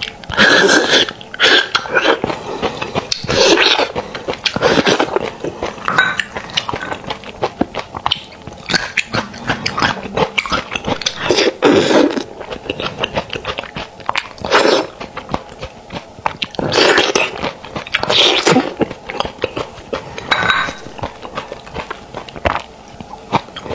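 Close-up, wet slurping and sucking as marrow is drawn from sauce-braised beef bones, in repeated bursts, between bouts of chewing with lip smacks and small clicks.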